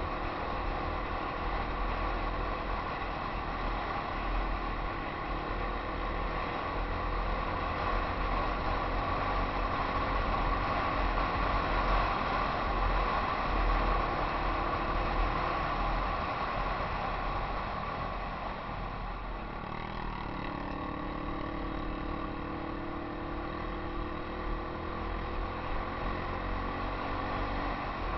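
Yamaha XT250 single-cylinder four-stroke trail bike engine running steadily under way, with wind rumble on a helmet-mounted camera; the engine note eases off about two-thirds of the way through.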